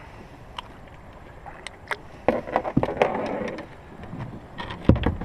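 Handling a freshly caught mangrove jack in the bottom of a small boat: sharp clicks and knocks, a loud scuffling rustle around the middle, and a heavy thump near the end.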